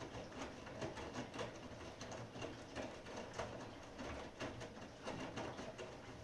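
Bosch Serie 6 iDos WAT28640 front-loading washing machine during a wash: laundry tumbling in the turning drum, with a low motor hum under irregular soft knocks.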